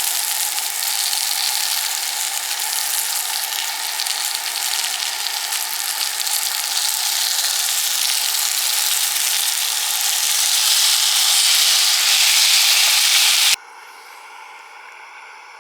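Food sizzling in a frying pan on a camp stove: a loud, steady sizzle that swells slightly, then cuts off abruptly near the end, leaving only a faint steady background hiss.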